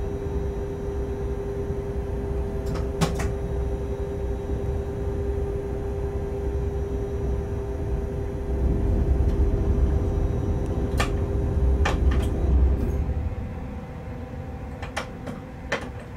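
Freight locomotive heard from the cab while rolling slowly through a rail yard: a steady hum with a low rumble that grows louder about eight seconds in, then drops and loses its tone about thirteen seconds in. A few sharp clicks fall in between.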